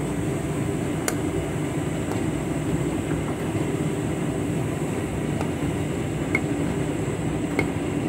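Candy front-loading washing machine drum tumbling a big load in sudsy water: a steady motor and drum rumble with water sloshing, and a few faint ticks.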